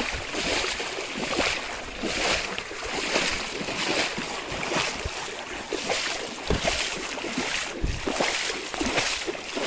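Water sloshing and splashing in rhythmic surges about once a second, as someone moves through floodwater, with some wind on the microphone.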